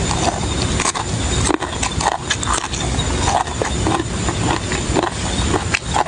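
Close-up chewing and mouth smacking of a person eating, a steady run of wet clicks and smacks.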